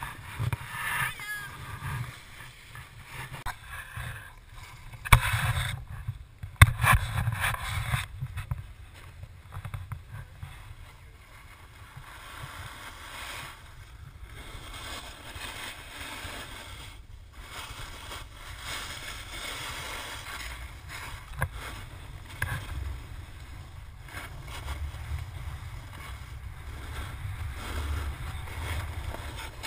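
Wind buffeting an action camera's microphone while sliding down a groomed ski run, with edges scraping and hissing over packed snow. A couple of sharp knocks come about five and seven seconds in, and the rushing settles into a steadier hiss after that.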